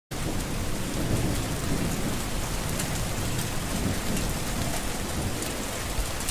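Steady heavy rain with a low rolling rumble of thunder.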